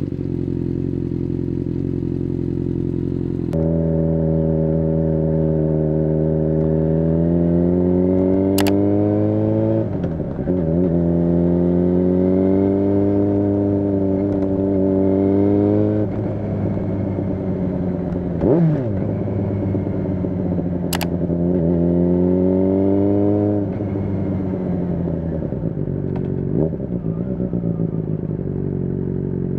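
2008 Yamaha FZ6 Fazer's inline-four running through a free-flowing custom exhaust. It idles steadily at first, then is heard under way, the engine note rising as the bike pulls and dropping back when the throttle is eased, several times over.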